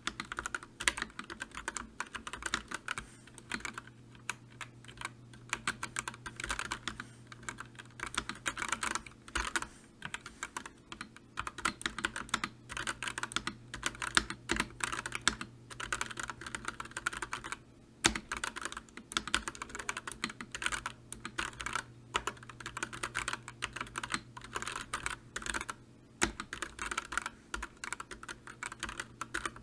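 Continuous typing on a computer keyboard: a fast, uneven stream of key clicks with a few brief pauses, over a faint steady low hum.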